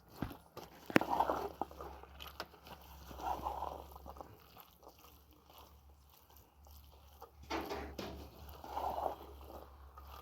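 Eating sounds close to the microphone: chewing and crunching, with a few sharp clicks, over a steady low hum.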